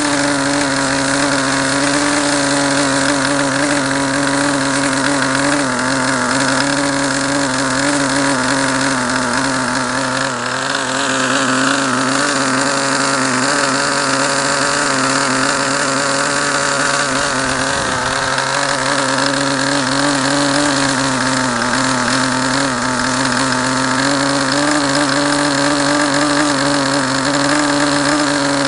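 SuperTigre G51 two-stroke glow engine with a muffler, turning a 10x6 propeller on a test stand, running steadily at about 8,150 rpm with a slight waver in pitch. It is still being broken in after a rebuild and is run below its peak setting.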